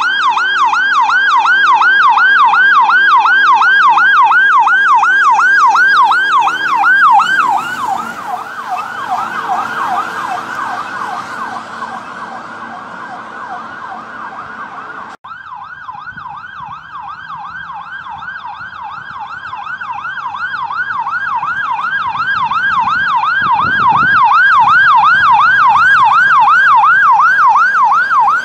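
Fire engine electronic sirens on a rapid yelp, several sweeps a second. The first engine passes close, and its sound drops in pitch and level about seven seconds in. After a sudden break midway, a second engine's yelp grows steadily louder as it approaches.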